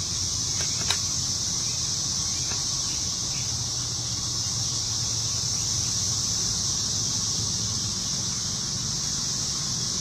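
Steady insect chorus, an even high-pitched buzz, over a faint low rumble, with a single click about a second in.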